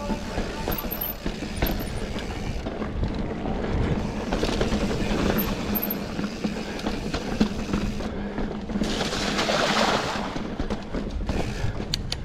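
Orange Stage 6 mountain bike riding singletrack over small smooth pebbles, with constant rattling and knocking from tyres and frame and wind rushing over the mic. A louder rush of noise comes about nine seconds in.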